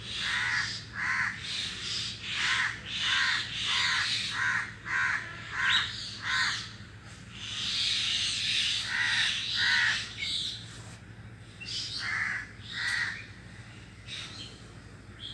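Crow cawing in a quick run of short calls, about two a second, then slowing to a few scattered caws after a short pause.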